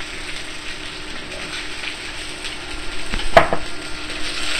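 Shishito peppers sizzling in avocado oil in a very hot pan as they blister, a steady hiss. One sharp knock about three and a half seconds in.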